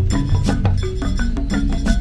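Background music with a quick, steady beat of wood-block-like percussion and struck mallet notes.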